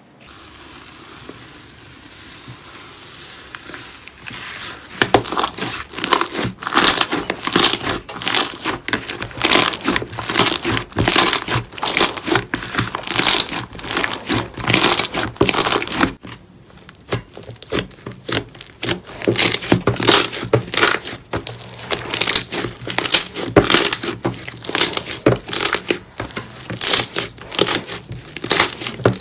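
Hands squeezing, pressing and pulling slime, making a quick run of short, sharp sounds about two a second after a quieter first few seconds, with a brief pause a little past halfway.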